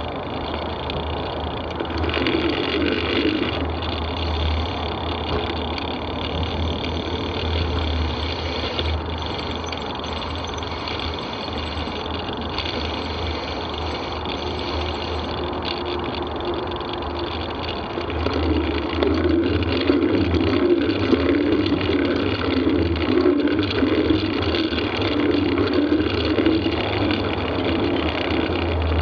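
Steady rolling noise of a bicycle ridden along a path, mixed with traffic noise from the M6 motorway. It grows louder and rougher about two-thirds of the way in as the tyres run through wet mud.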